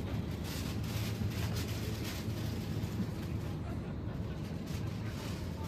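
Supermarket background noise: a steady low hum with faint rustling and light clicks.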